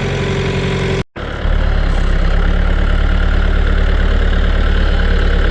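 Engine idling steadily, with an even pulsing note. It breaks off abruptly about a second in, and moments later a louder engine sound with a strong low hum runs steadily.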